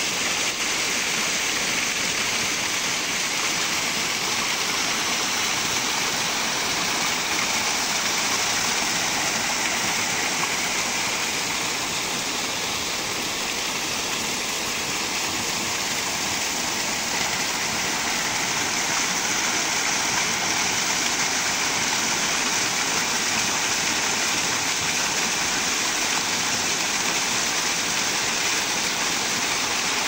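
Small waterfall cascading between rocks: a steady, unbroken rush of falling water.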